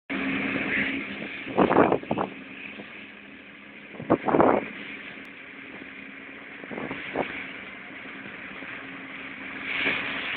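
Massey Ferguson 7485 tractor running steadily, powering a Herder boom-mounted flail mower cutting a ditch bank: a steady engine hum with hiss. A few short loud bursts stand out, the loudest about one and a half and four seconds in.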